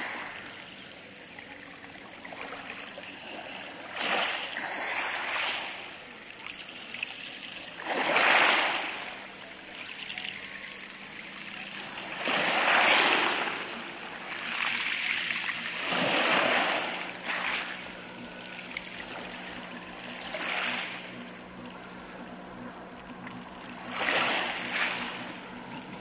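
Small sea waves washing up over a shingle beach of rounded pebbles and drawing back through the stones. A surge comes about every four seconds, with quieter washing between.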